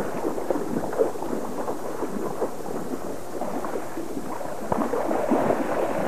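A hooked salmon thrashing in ankle-deep creek water, a steady run of splashing that grows heavier about five seconds in.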